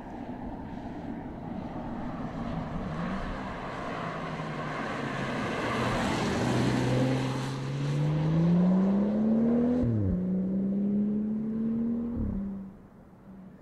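BMW 4 Series Gran Coupe's engine accelerating hard as the car drives past, with tyre and wind rush loudest around the middle. The engine note climbs, drops at an upshift about ten seconds in, climbs again, then falls away sharply near the end.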